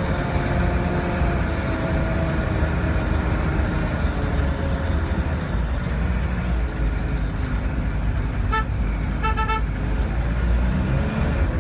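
SHERP all-terrain vehicle's four-cylinder Kubota diesel running steadily while driving, heard from the cab. A vehicle horn toots twice, a short toot about eight and a half seconds in and a slightly longer one just after.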